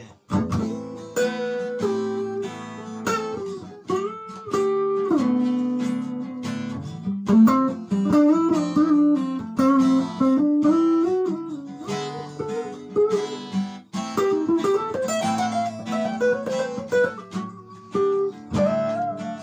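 Electric guitar played through an amplifier: a melodic single-note lead line, with some held notes and notes that slide in pitch.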